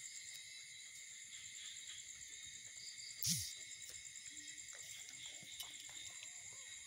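Faint, steady, high-pitched chirring of crickets, with one soft bump a little under halfway through and a few small squeaks near the end.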